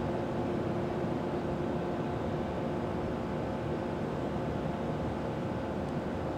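GE ES44 locomotives, with 12-cylinder GEVO diesel engines, approaching from a distance. Their engines make a steady drone with a few steady tones over it.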